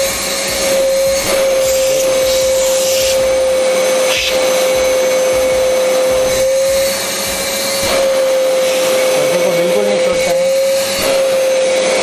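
Prestige Typhoon 05 wet-and-dry vacuum cleaner's 1200 W motor running with a steady high whine and rush of air, its hose nozzle drawing at a fabric curtain. The pitch and loudness shift slightly now and then.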